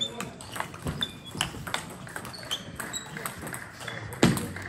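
Table tennis rally: the plastic ball clicking off the bats and the table in quick succession, some hits with a short high ping. A single louder thump comes near the end.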